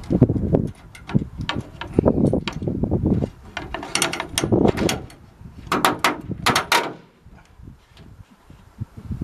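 Metal brackets knocking and clicking as they are handled and shifted against a plywood plate on a van's rear door, in an irregular run of knocks with a cluster of sharp clicks about four to seven seconds in, then much quieter.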